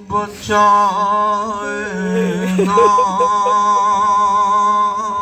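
A man singing a noha (Shia Muharram lament) into a microphone, drawing out long, slowly wavering held notes between the words of a line, after a short breath just after the start.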